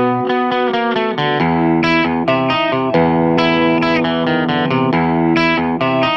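Background music: guitar-led track with a stream of plucked notes over a sustained bass.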